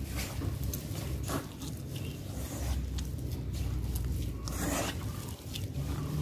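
A hand rubbing and working flour with fat in a metal mixing bowl: irregular soft scratching and scraping strokes, the strongest about three-quarters of the way through, over a steady low hum.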